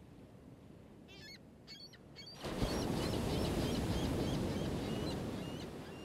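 Ocean wave sound track: a wave rushes in about two and a half seconds in and slowly washes out, with birds calling. A few short bird calls come just before the wave.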